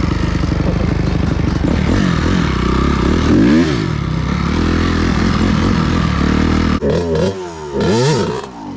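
Dirt bike engine running under throttle. Its pitch swoops up and down about three and a half seconds in and several times near the end as the throttle is worked, then the sound drops off.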